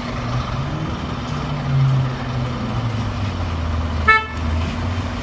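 Scania R450 tractor unit's six-cylinder diesel running at low revs while manoeuvring slowly, its pitch rising a little and then settling lower. About four seconds in comes a single short horn toot.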